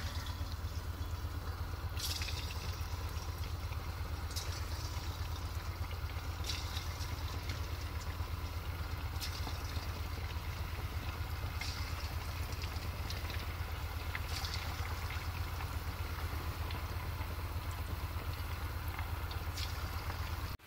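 Marinated chicken cubes deep-frying in hot oil in a karahi, the oil bubbling and sizzling steadily with a few faint crackles every couple of seconds, over a steady low hum.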